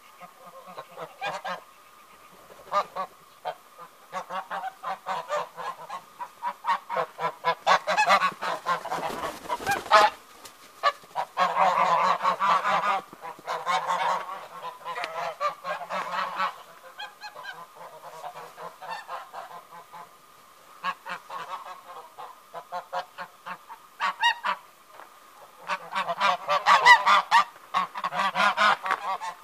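A flock of white domestic geese honking over and over in noisy bursts as they chase one another, the busiest runs of calling about a third of the way in and again near the end.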